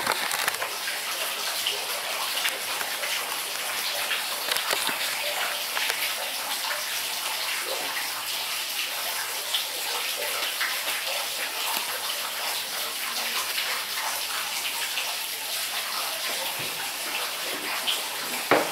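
Steady rush of running, splashing water, with small ticks scattered through and a sharp knock near the end.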